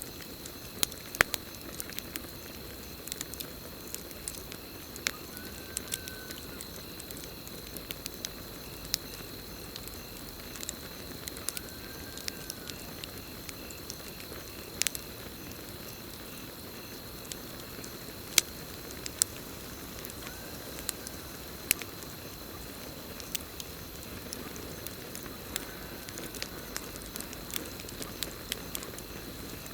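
Campfire crackling, with frequent sharp pops over a steady low hiss of burning wood. A steady high cricket trill runs underneath, and a short arched call recurs about every six seconds.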